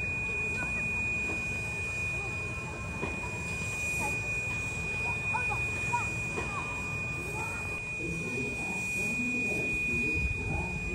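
1917 Baldwin narrow-gauge 4-6-0 steam locomotive, ET&WNC No. 12, standing at the station with a low steady rumble, with people's voices around it and a steady high-pitched whine throughout.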